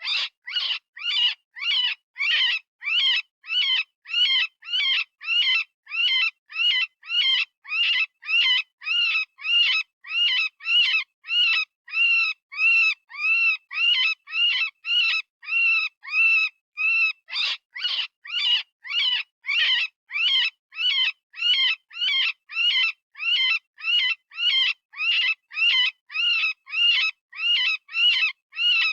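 Synthesized rabbit distress scream of the kind used as a predator call: short cries repeated about twice a second, each rising then falling in pitch.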